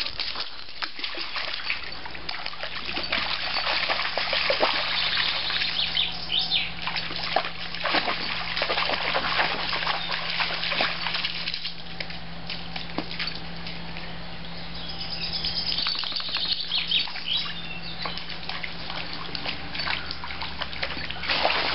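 Soft-coated wheaten terrier wading through a shallow stream, water sloshing and splashing around its legs, with birds chirping now and then.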